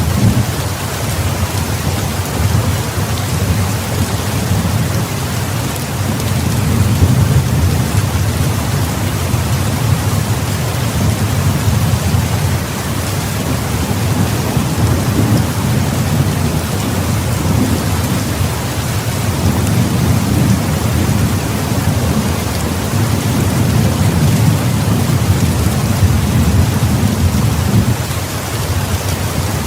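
Heavy rain pouring steadily, with a low rolling rumble of thunder underneath that swells and fades.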